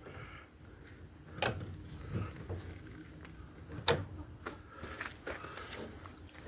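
Faint scattered clicks and knocks of a clamp and wood being handled and tightened, with a sharper knock about a second and a half in and another about four seconds in.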